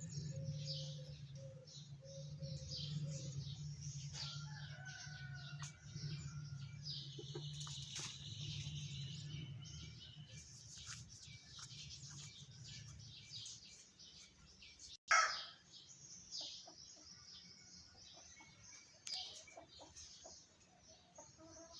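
Many small birds chirping and calling, mixed with the clucking of chickens. A low steady hum fades out about two-thirds of the way through, and a single sudden loud sound stands out about fifteen seconds in.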